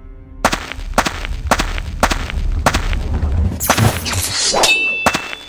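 A steady run of sharp metallic clangs, about two a second, then a burst of noise and a sharper clang that keeps ringing on a high note near the end.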